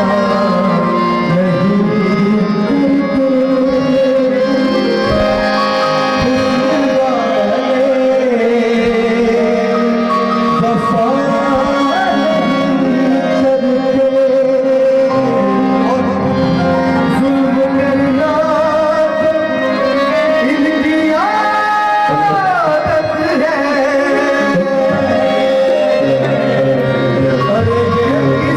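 Live qawwali music: tabla drumming under a sung melody with long held notes. About three-quarters of the way through, one held note slides downward.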